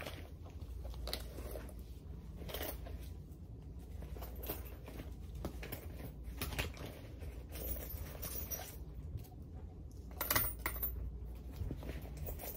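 Handling noise close to the microphone: scattered clicks, taps and rustles of small objects and clothing being moved about, over a low steady hum, with a louder cluster of clicks about ten seconds in.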